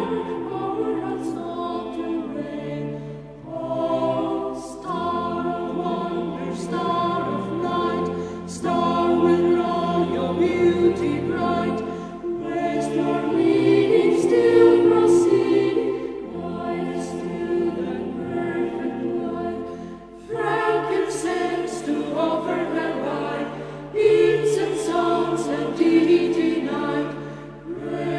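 Background music: a choir singing sustained chords.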